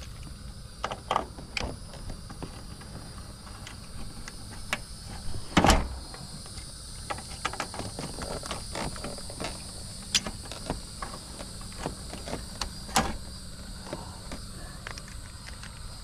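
Scattered clicks and knocks of hands handling wiring and tools inside an air conditioner unit, with one louder thump about five and a half seconds in, over steady chirring of crickets.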